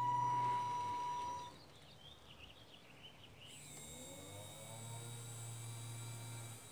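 Small electric drive of an RC rollback truck's tilting flatbed whining as it moves the deck back: a steady high whine that cuts off about a second and a half in, then a quieter hum with a whine rising in pitch near the four-second mark.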